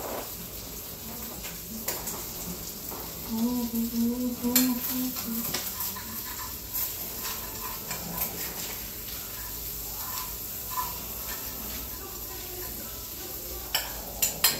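Knife and fork clinking and scraping on a plate while a baked potato is cut open, over a steady faint hiss. A short low hum sounds about four seconds in.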